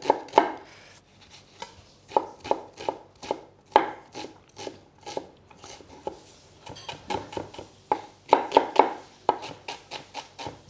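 Chef's knife chopping an onion on a wooden chopping board: runs of sharp knocks, about three to five a second, with short pauses between them.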